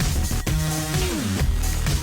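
Upbeat electronic intro music with a steady beat and synth notes, one note sliding down in pitch midway.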